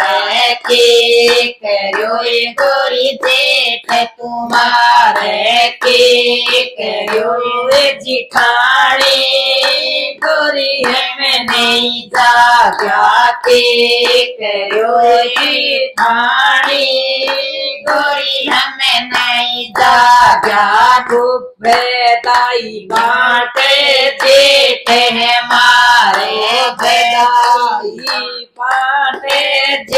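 Three women singing a Haryanvi jachcha geet, a folk song for a new mother, together in Bagri dialect, clapping their hands to the beat.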